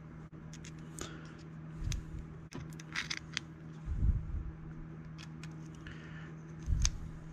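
Small RC kit parts being handled at a workbench: scattered light clicks and rattles of plastic and metal pieces, with a few dull bumps, over a steady low hum.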